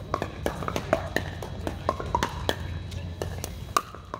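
Pickleball paddles striking plastic pickleballs, a rapid irregular run of sharp hollow pops from several games at once, the loudest near the end. A steady low hum runs underneath.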